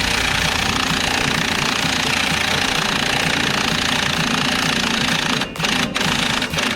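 Impact wrench hammering continuously as it spins off the 18mm ball joint nut on a truck's front steering knuckle, with a brief let-up about five and a half seconds in.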